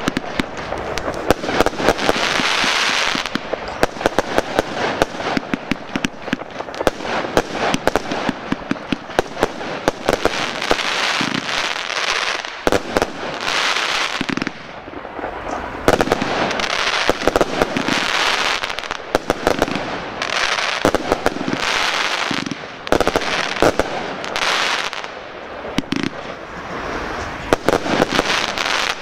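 Fireworks display firing a continuous barrage: many sharp bangs and pops of bursting shells in quick succession, with stretches of hissing crackle between them.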